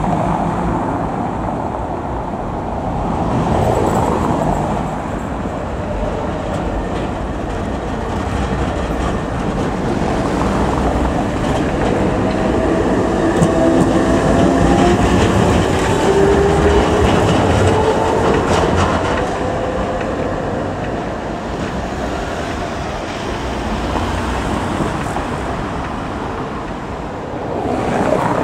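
A GT4 articulated tram approaching and passing close by, its wheels running on street rails, with a whine that glides up and down in pitch as it goes past. Near the end another tram is heard approaching.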